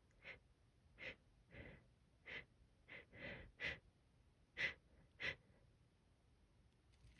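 A person's sharp, hitching pre-sneeze breaths, about nine short gasps in five seconds at uneven spacing, the strongest two toward the end: a sneeze building up while it is being held back.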